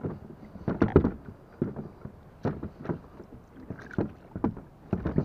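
Irregular knocks and clunks as a kayak's pedal drive is handled and fitted into its well in the hull, about eight of them, the loudest about a second in.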